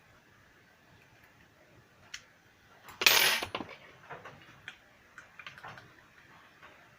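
Small tools or parts being handled on a workbench: a short, loud clatter about three seconds in, with light clicks and ticks before and after it.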